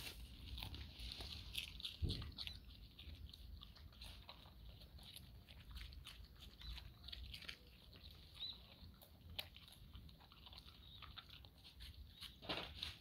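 A dog biting and chewing a raw napa cabbage leaf: quiet, irregular crunches and crackles of the leaf tearing in its mouth, one a little louder about two seconds in.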